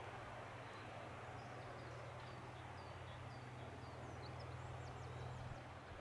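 John Deere tractor's diesel engine running steadily under load as it pulls a five-furrow plough through the soil. From about halfway through, a series of short, high-pitched bird chirps sounds over it.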